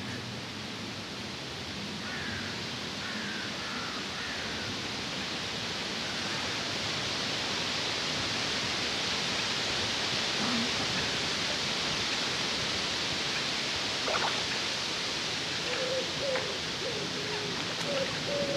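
Steady hiss of wind through trees and reeds, slowly swelling, with a few faint high chirps about two seconds in and a few short low notes near the end.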